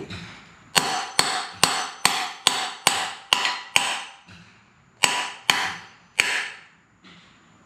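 Hammer blows knocking the large OEM wheel bearing out of a 2023 BMW S1000RR's rear wheel hub. A run of eight sharp strikes at about two a second, a pause, then three more, each ringing briefly.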